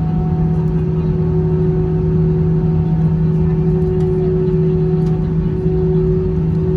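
Airbus A320 cabin noise during taxi after landing: a steady hum with two low steady tones over a broad rumble.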